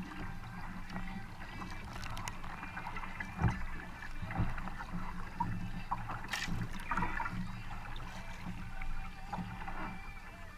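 Kayak paddling: a double-bladed paddle dipping and pulling through the water, with splashing and water running along the hull, and a few sharp knocks, the loudest about three and a half seconds in.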